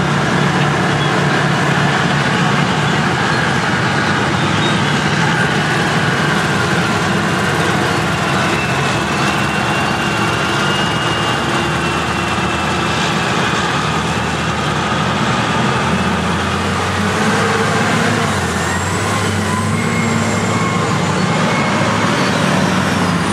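Heavy diesel engines of classic Caterpillar earthmoving machines running steadily as they work and drive past, with a thin high whine about ten seconds in.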